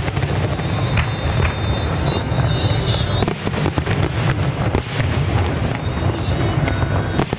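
Aerial fireworks display: shells bursting and crackling in quick succession over a continuous low rumble. A thin, high, steady whistle runs through the first half and returns briefly near the end.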